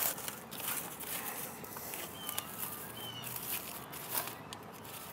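Dry, charred corn husks rustling and crackling, with scattered light knocks, as husk-on ears of corn are handled and turned on a smoker grill's metal grate.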